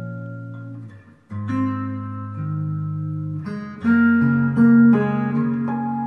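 Steel-string acoustic guitar (Gwood GMR-C) fingerpicked with a capo, amplified through a Sunrise S2 magnetic soundhole pickup blended with a K&K Pure Mini into a Fishman Loudbox Mini amp: ringing arpeggiated chords, a short break about a second in, then the next phrase, loudest around four to five seconds in.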